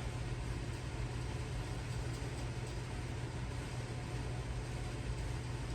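Homemade mini bike's small engine running steadily at idle, now getting enough fuel after the tank was topped up because the fuel line wasn't feeding all the way through.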